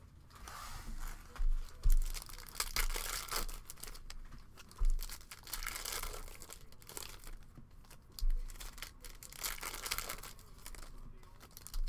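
Foil trading-card pack from a Panini Prizm football blaster being torn open and its wrapper crinkled by hand, with a few dull bumps along the way.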